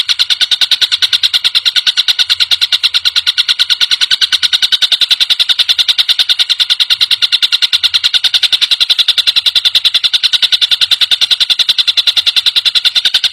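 Tengkek buto kingfisher (collared kingfisher) giving a loud, rapid rattling chatter of sharp, harsh notes, many each second, repeated at an even pace without a break.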